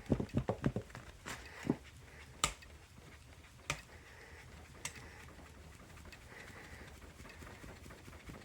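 Smoke being cleared out of a smoke detector's chamber: a quick run of soft, low puffs for about the first second. Then come a few sharp clicks, roughly a second apart.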